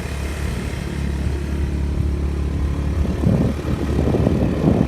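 An engine running steadily. About three seconds in, a rougher, uneven rumbling joins it.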